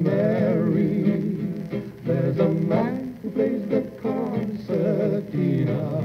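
Shellac 78 rpm record of a 1940 male vocal duet with two guitars: voices singing with wavering vibrato over guitar accompaniment.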